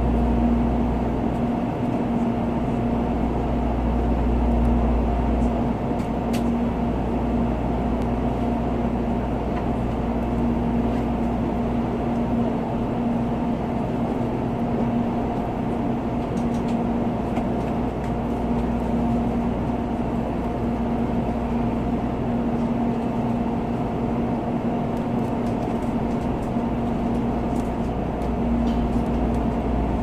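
Steady cabin hum inside an N700A Shinkansen car standing at the platform: an even drone with a constant mid-low tone and a low rumble underneath.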